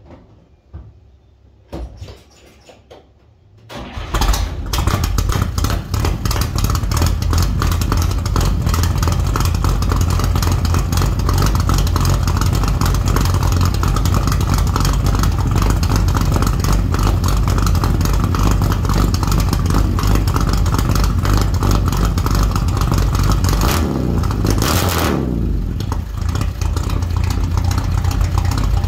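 1955 Chevy engine on straight-piped true dual exhausts, started cold: after a few seconds of quiet it catches about four seconds in and settles into a loud, steady, lumpy idle out of the open pipes. The engine speed briefly rises and falls about 25 seconds in.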